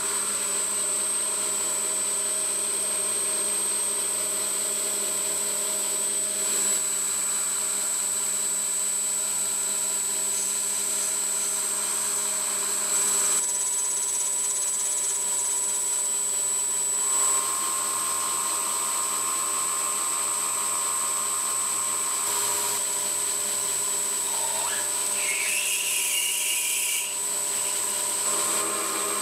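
Schaublin lathe running steadily with a high, even whine while a small brass nut is turned and drilled. The sound shifts a few times, and a short rising squeal comes about 25 seconds in.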